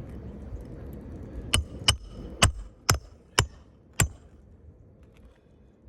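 Six sharp hammer blows on a metal roofing tool, about two a second, driving a nail in under an asphalt shingle. They ring out over a low rumble of wind or handling noise.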